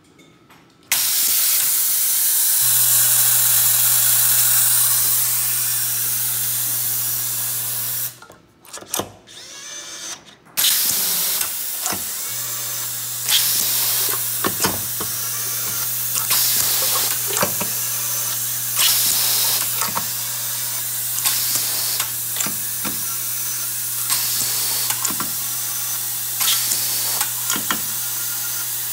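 Automatic screw feeding and driving system at work: a steady hiss and a low hum run on, and over them the DC electric screwdriver gives repeated short bursts with clicks, about one every second and a half, as screws are fed and driven one after another. About eight seconds in the hiss and hum stop for about two seconds, leaving a few clicks.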